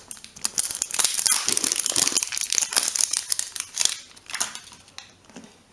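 Crinkly plastic wrapper crackling and tearing as it is peeled off a plastic surprise ball by hand. The crinkling is dense and continuous for about four seconds, then thins to a few rustles near the end.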